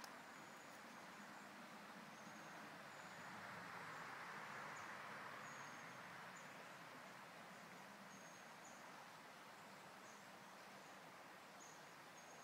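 Near silence: faint shallow-river ambience, a soft steady hiss with short faint high peeps about once a second.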